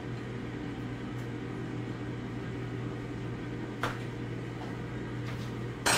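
Steady electrical hum of a running kitchen appliance's motor or fan. There is a faint tap about four seconds in and a sharper click near the end.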